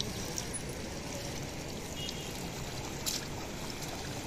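Water pouring and trickling off a wet cast net as it is hauled up out of a river.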